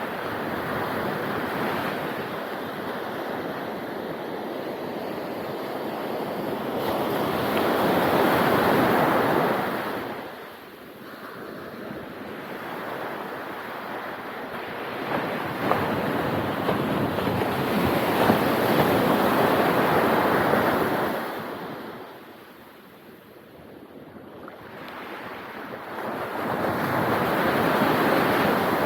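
Ocean waves breaking on a beach in slow surges, swelling and fading every several seconds, with some wind on the microphone.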